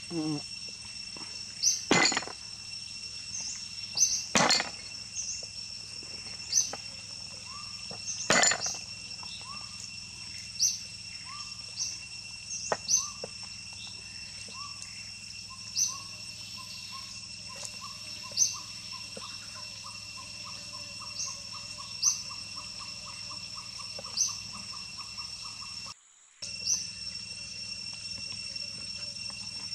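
Cleaver chopping on a wooden cutting board: four heavy chops in the first nine seconds, then lighter cutting taps every second or two. Behind them runs a steady high insect drone, and a bird calls with a repeated note that speeds up in the second half.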